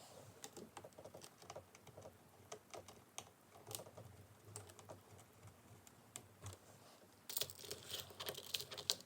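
Faint small clicks and taps of a screwdriver and screws against a laptop's plastic case as screws are driven back in, with a denser burst of louder clicking near the end.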